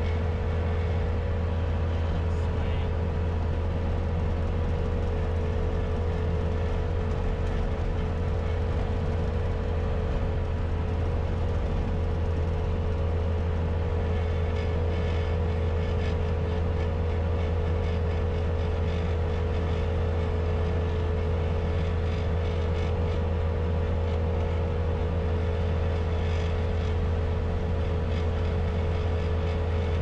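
Bobcat S250 skid-steer loader's diesel engine running steadily under load as the bucket pushes snow, heard from inside the cab: a constant low drone with a steady whine above it.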